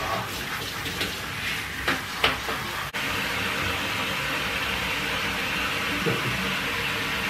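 Water from a handheld shower running in a bathtub and spraying onto a small dog being rinsed: a steady hiss of spray, with a few splashes in the first couple of seconds and a brief dropout about three seconds in.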